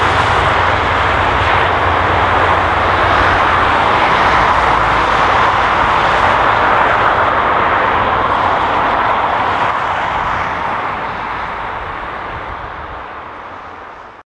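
Heavy truck with a trailer driving along a highway: a steady rush of tyre and engine noise with a low rumble under it, fading away over the last few seconds.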